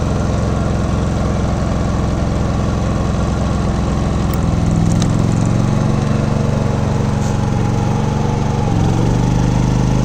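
Westinghouse iGen 4500 inverter generator's engine running steadily, then stepping up in speed about halfway through and again near the end as it ramps up to take the house's electrical load.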